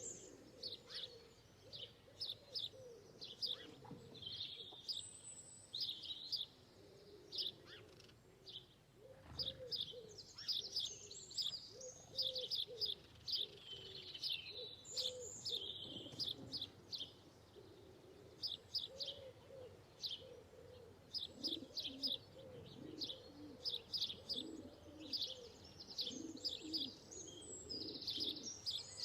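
A flock of small birds chirping rapidly and continuously, with lower repeated call notes beneath them that become more frequent in the second half.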